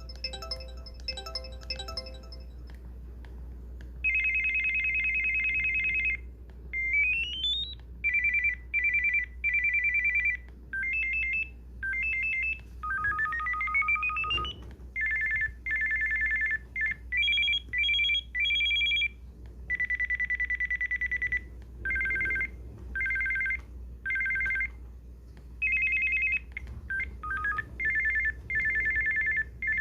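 Samsung SPH-M300 cell phone playing its built-in ringtones through its small speaker. A short electronic melody ends about two and a half seconds in, then comes a run of high electronic ring tones: warbling rings at one pitch, two rising sweeps, and patterns that step between two pitches, each burst lasting one to two seconds with short gaps. A steady low hum runs underneath.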